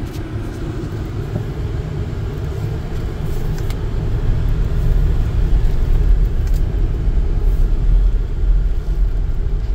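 Low rumble from inside the cabin of a 2007 Lincoln Navigator pulling away in drive and moving across a dirt lot: its 5.4-litre V8 and tyre noise, growing louder about three seconds in as it gets under way.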